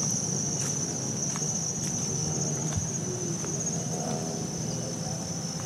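Insects trilling in one steady, continuous high-pitched drone, with a few scattered light clicks and some low rustling underneath.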